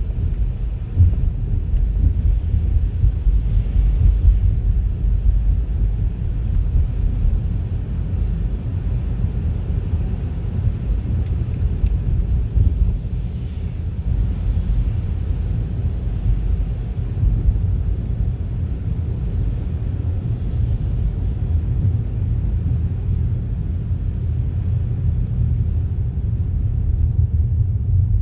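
Steady low rumble of a car being driven, engine and road noise with no sudden events.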